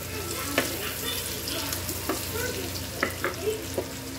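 Wooden spatula stirring and scraping pork adobo around a frying pan while the oil and butter sizzle steadily, with a few short knocks of the spatula against the pan, most of them about three seconds in.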